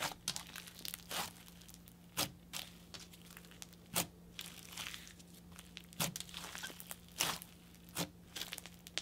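Snow fizz floam slime being squeezed and stretched by hand: a soft crackling fizz broken by sharp pops every second or two.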